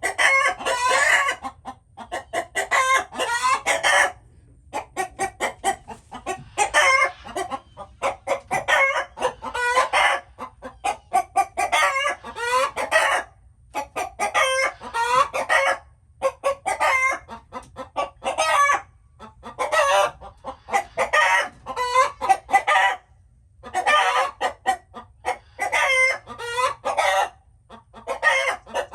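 Chickens clucking in rapid runs of calls, coming in bursts of a second or two with short pauses between them, over and over.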